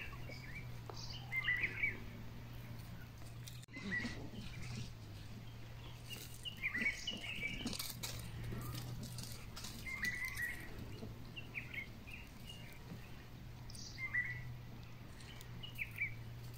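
Short, high chirping calls, about one every second or two, over a steady low hum, with faint scattered rustles and clicks.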